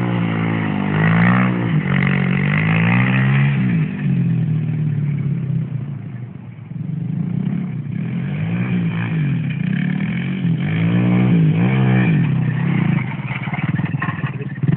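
Honda Blade 110 moped's small single-cylinder four-stroke engine revving up and down again and again as it is ridden across grass. It fades briefly about six seconds in as the bike moves off, then grows louder again.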